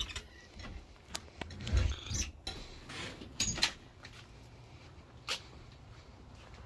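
A door being opened and shut, with a low thump about two seconds in, and a few scattered clicks and footsteps.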